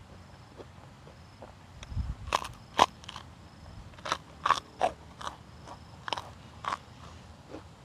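Close-up crunchy bites and chewing of food: a string of about ten sharp crunches starting about two seconds in and stopping near the end.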